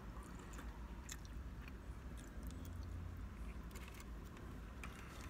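A person chewing a mouthful of steak teriyaki and rice close to the microphone: soft wet mouth sounds with a few faint clicks, over a low steady hum.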